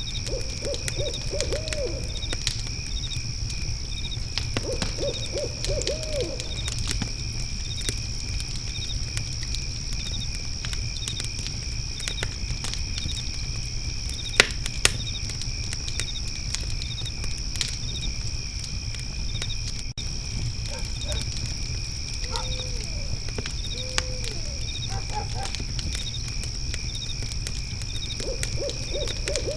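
Night ambience of crickets trilling steadily and a fire crackling with scattered pops, over a low steady rumble. An owl calls several times in short runs of quick hooting notes: near the start, around five seconds in, in the later half, and again near the end.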